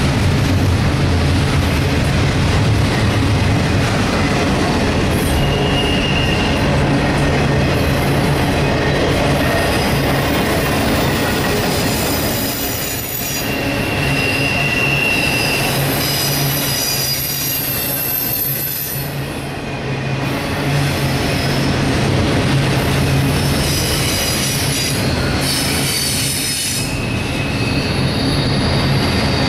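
Double-stack intermodal well cars of a CSX freight train rolling past close by: a steady rumble and rattle of steel wheels on rail, with high-pitched wheel squeal coming and going. The loudness dips briefly a few times as the cars go by.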